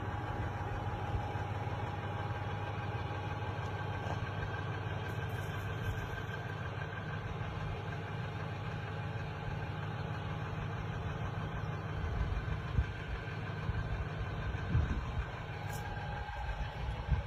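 Steady low hum of an idling engine, with two faint steady tones above it. There are a few soft uneven knocks in the last few seconds.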